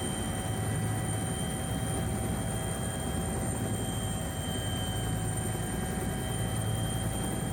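Bell 212 helicopter's twin turbine engines and rotor running steadily: a constant low rotor rumble under a high, steady turbine whine.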